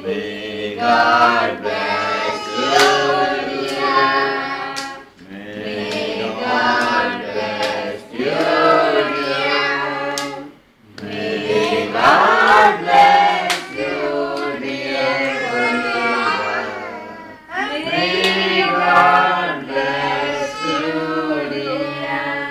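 Several people singing a song together in phrases with short breaths between them, with hand claps along with the singing.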